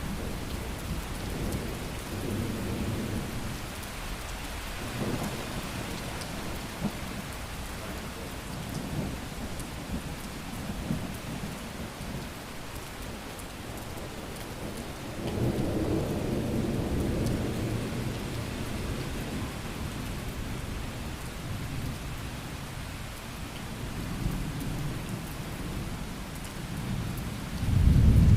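Thunderstorm: steady rain with low rolling thunder, one swelling rumble about halfway through and a louder one starting right at the end.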